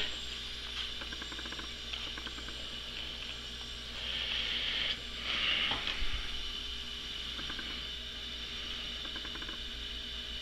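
Compressed air hissing steadily during a cylinder leak-down test on a BMW R90/6 airhead boxer engine, with louder surges of hissing about four and five seconds in and faint clicking. The hiss is crankcase noise: air leaking past the piston rings, a sign of worn rings.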